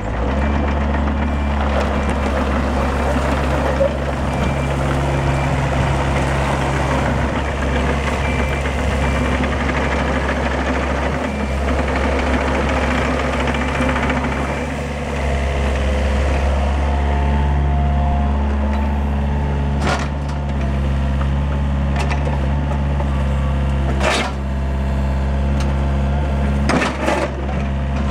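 Yanmar ViO45-5 mini excavator's 2.19 L four-cylinder diesel engine running steadily as the machine swings and works its boom and blade. The engine note shifts with the hydraulic load a little past halfway, and a few sharp metallic knocks come in the latter part.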